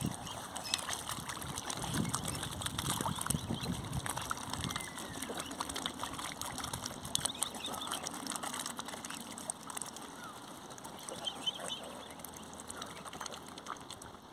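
Waterfowl splashing and calling on the water as they are fed bread, with many short high chirps and clicks.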